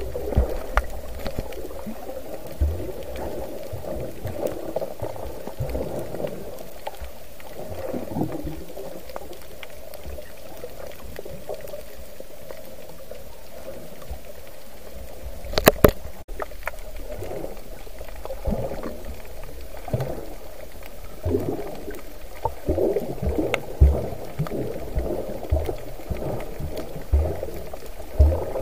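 Muffled underwater noise through an action camera's waterproof housing: water moving around the case, with irregular low knocks and one sharp click about halfway through.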